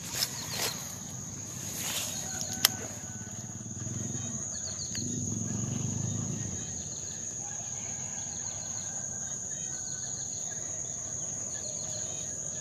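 Outdoor ambience: a steady high-pitched insect drone with small birds chirping, a low rumble swelling about four to six seconds in, and one sharp click a little over two seconds in.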